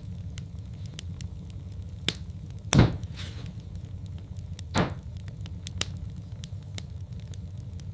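Wood fire crackling in a fireplace: a steady low rumble with frequent small crackles and three louder pops, the loudest about three seconds in.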